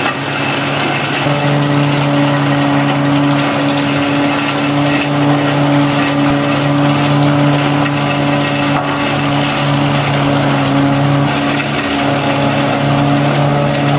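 Tractor engine running steadily at high revs, powering a PTO-driven FAE forestry mulcher, with a steady drone and a rough, noisy rush over it.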